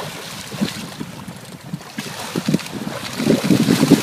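Splashing in shallow water as a hooked tarpon thrashes while it is grabbed by hand. The splashing grows louder and busier near the end, with wind on the microphone.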